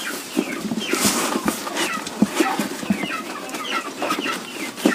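Chickens clucking repeatedly, with short knocks and rustles of cardboard as a box's flaps are folded shut.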